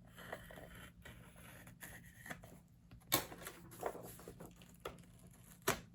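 Soft rustling and scraping of old book paper as a pointed tool works between the pages to loosen a glued-in colour plate, with two sharper clicks, about three seconds in and near the end.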